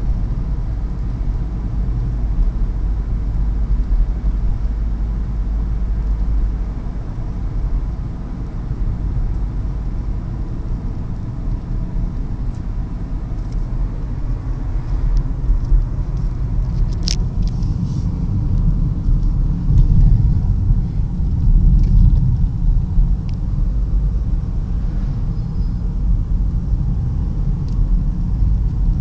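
Steady low rumble of a car driving, with a few faint clicks and one sharp click about halfway through.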